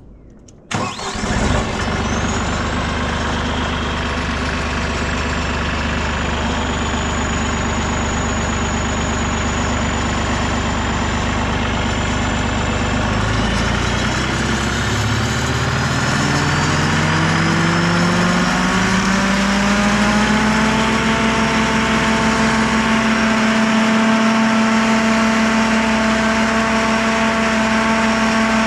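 Carlton SP6016TRX stump grinder's engine starting about a second in and running at low speed, then rising steadily in pitch over several seconds to run at a steady high speed.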